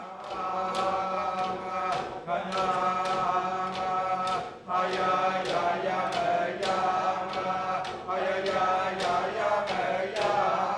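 Inupiaq drum song: voices chanting together in unison over frame drums with walrus-stomach heads, struck in a steady beat about once a second.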